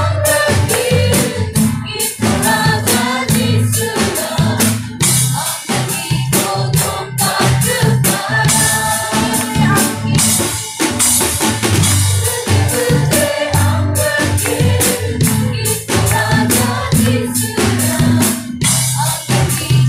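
A worship band performing live: a group of singers with microphones singing a gospel song together over acoustic guitar and a drum kit.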